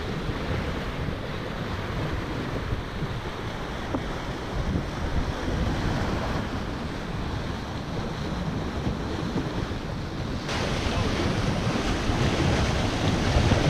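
Wind buffeting the microphone over the rush of water along the hull of a sailboat under way under spinnaker. The noise gets louder and brighter about ten seconds in.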